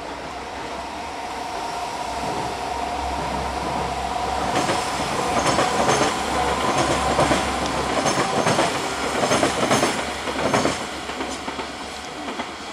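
Passing multi-car passenger train: wheels clicking in quick groups over the rail joints from about four seconds in, over a steady two-note whine, fading near the end.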